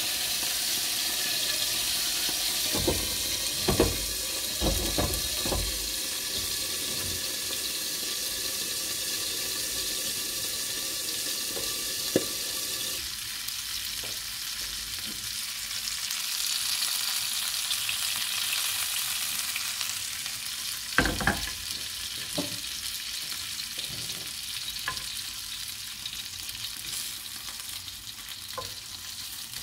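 Food frying and sizzling in a pan, with a steady hiss, and a utensil stirring it that knocks against the pan a few times: a cluster of knocks early on, then single knocks in the middle and later.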